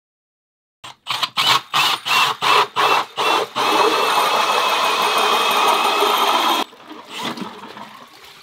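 Cordless drill spinning an ice auger to re-open an ice-fishing hole that froze over in the extreme cold. It runs first in a quick series of short trigger bursts, about three a second, then in one steady run with a high whine for about three seconds that stops abruptly, followed by softer irregular noises.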